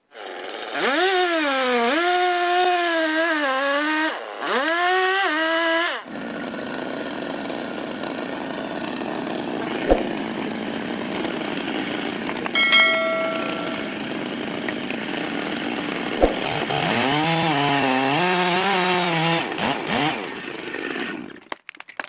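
Chainsaw cutting into a tree trunk, its engine pitch rising and sagging under load for the first few seconds. It then runs more steadily with a few clicks, and near the end it revs and wanders in pitch again before cutting off.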